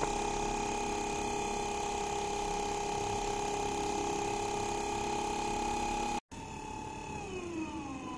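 Tullu universal motor (brushed AC/DC sewing-machine motor) running steadily on 56 V DC with a steady whine. After a brief dropout about six seconds in, the whine drops and wavers in pitch as the spinning shaft is gripped by hand and loaded.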